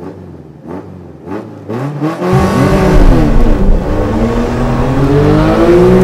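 Porsche Carrera 4S and Tofaş Doğan SL launching side by side from a standstill at a traffic light. Engines rev lightly at first, then go to full throttle a little over two seconds in. The pitch climbs, drops at a gear change, and climbs again.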